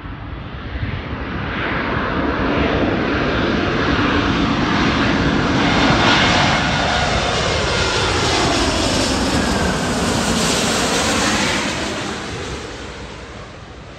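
Airbus A350-1000's Rolls-Royce Trent XWB turbofans passing low overhead on final approach. The jet noise builds to its loudest about six seconds in, then its tones glide down in pitch as the aircraft goes by and it fades near the end.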